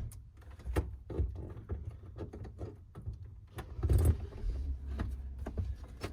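Scattered light metallic clicks, clinks and knocks of hand work with metal parts and tools while a bracket is tried in place under a car's cowl, with the loudest knock about four seconds in.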